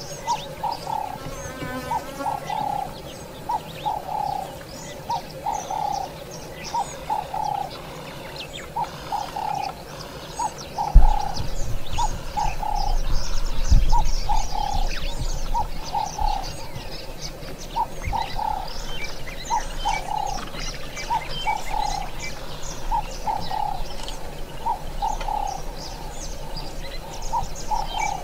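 Wild birds calling: a low call of a few short notes repeated about once a second, with high chirps from smaller birds above it. About eleven seconds in a low rumble sets in and stays under the birdsong.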